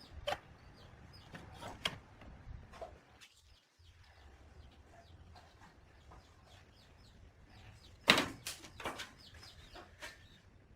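Faint bird chirps in the background, with a few sharp knocks, the loudest a quick cluster about eight seconds in.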